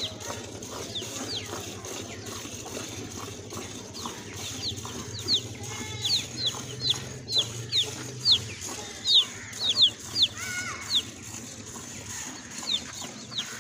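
Chickens calling in many short, quick falling chirps, loudest through the middle, over the rhythmic squirts of milk into a steel bucket as a cow is milked by hand.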